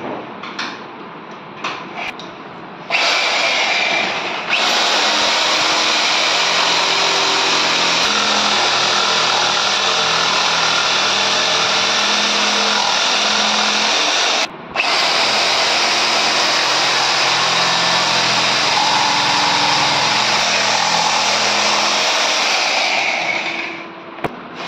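Corded electric jigsaw cutting through thick plywood, running steadily for about twenty seconds after a few knocks at the start. It stops for a moment halfway through, then winds down near the end.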